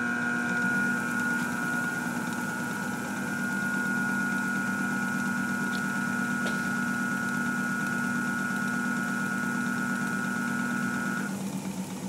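Crankshaft balancing machine spinning a 454 big-block Chevy crankshaft with bob weights, flexplate and harmonic balancer: a steady hum with a high whine over it during a test spin to read where the imbalance lies. About a second before the end the whine stops and the level drops as the drive shuts off.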